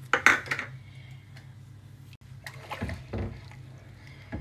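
Silicone spatula stirring freshly added sugar into hot milk in a metal pan: liquid sloshing, with a gritty scrape of undissolved sugar grains on the pan bottom, in irregular strokes over a steady low hum.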